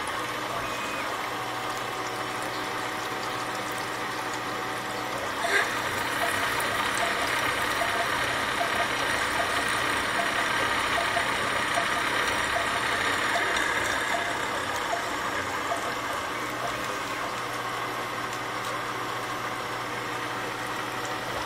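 CNC milling machine's endmill cutting a metal plate: steady spindle and cutting noise, with a thin whine over the first few seconds and a sharp tick about five and a half seconds in, after which the cutting grows a little louder.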